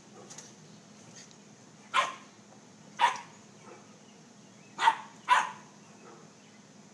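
Dog barking: four sharp single barks, the last two close together.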